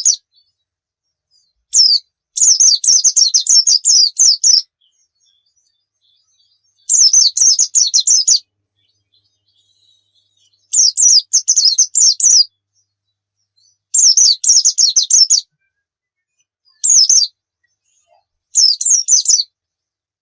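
White-eye (pleci) singing: bursts of fast, high twittering made of rapidly falling notes. Each phrase lasts up to about two seconds, with pauses of one to two seconds between them.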